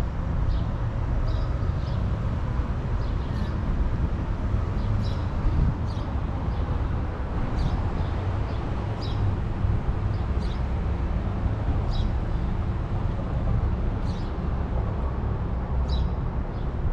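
Steady low rumble of city street traffic, with short high chirps every second or two.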